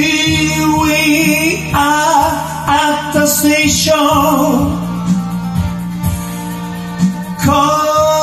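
A man singing into a microphone over a karaoke backing track, in English-and-Japanese rock-and-roll style; his voice is strong through the first half, drops back under the band, and comes in again near the end.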